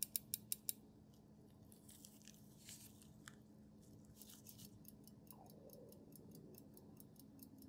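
The 1880s pocket watch's winding ratchet clicking a few times as the crown is turned, then the watch ticking faintly at about five ticks a second. It is running poorly, with low balance amplitude.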